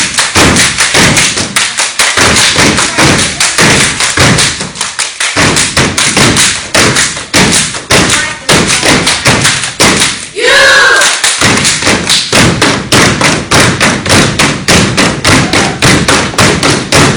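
Step team stepping in unison: many feet stomping on a hard floor together with claps, in a rapid, driving rhythm of several loud hits a second. A voice calls out briefly about ten seconds in.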